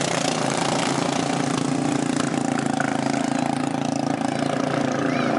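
Several racing lawn mower engines running together at speed around the track, a steady overlapping drone.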